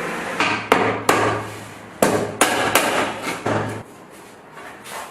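A hammer striking about seven irregularly spaced blows over the first four seconds, each with a short ring, then quieter.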